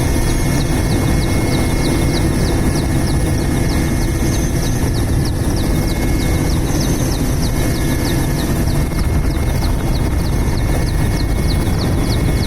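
Helicopter running, a loud steady drone with a rapid, regular ticking of about four or five beats a second.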